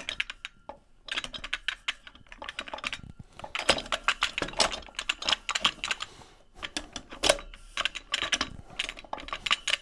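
Ford 10R140 transmission clutch pack and shaft splines clicking and rattling in quick runs, metal on metal, as the shaft is twisted back and forth to work its splines into engagement, with short pauses between the runs.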